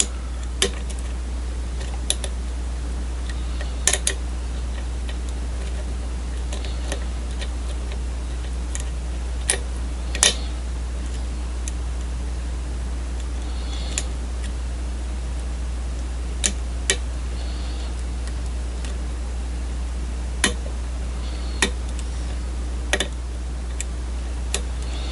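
Scattered small metallic clicks and ticks of a hook pick and tension tool working the pins of a pin-tumbler challenge lock, about a dozen irregular clicks, over a steady low hum.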